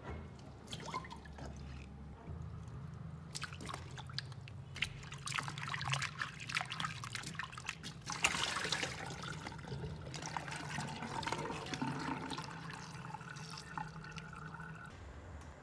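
Tap water running and splashing onto kohlrabi pieces in a plastic colander in a stainless steel sink, with hands rubbing and turning the wet pieces as they are washed.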